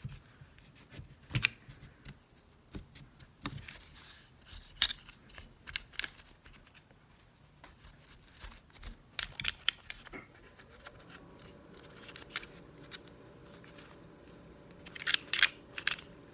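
A cloth scrubbing and wiping a Glock pistol's frame in short scratchy strokes, with scattered light clicks and knocks as the gun parts are handled; the sharpest clicks come in a quick cluster near the end. A faint steady hum comes in about ten seconds in.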